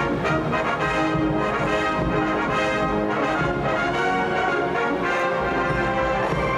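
Large high-school wind band playing, with the brass section carrying the tune in full ensemble.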